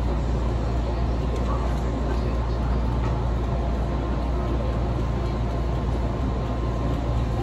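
Steady low rumble and noise inside a passenger train carriage on the Ōito Line.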